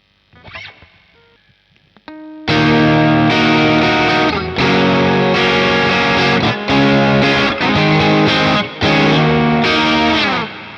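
Strat-style electric guitar played through a Caline Pure Sky overdrive pedal, a Timmy clone, strumming crunchy overdriven chords in a rhythmic riff with short breaks between phrases. Faint string noise and a single note lead in, and the last chord rings out near the end.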